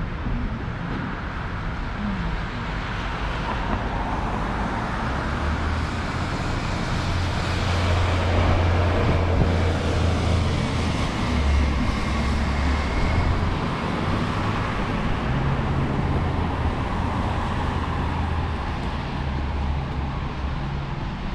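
City street traffic: cars passing on the road, swelling to a peak about halfway through, then easing off.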